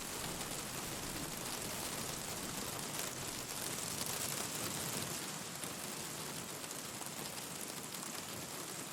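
Steady rain hiss with faint scattered pops and crackles from a wood fire.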